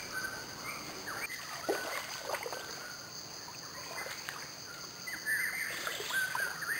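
Birds chirping in short rising and falling calls over a steady high insect drone. A few brief sloshes and splashes come from wading in a shallow stream about one to two seconds in, and the bird calls grow busier near the end.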